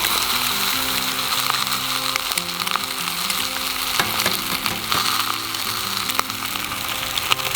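Thick-cut bacon sizzling steadily in a hot frying pan, with scattered crackles and a few sharper pops of spitting fat.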